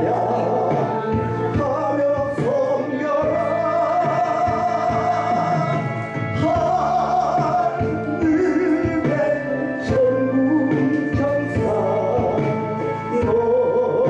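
Gospel song with instrumental accompaniment, a singer holding long notes over the band.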